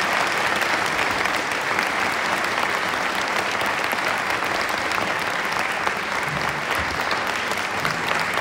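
Concert audience applauding steadily, a dense mass of handclaps.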